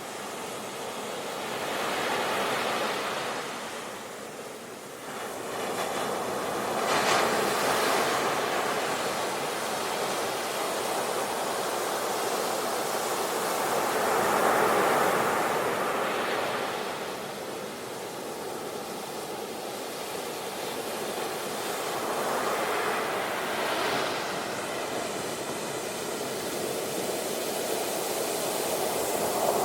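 Sea waves breaking on the shore, a continuous wash of surf that swells and ebbs as each wave comes in, with a sharper break about seven seconds in.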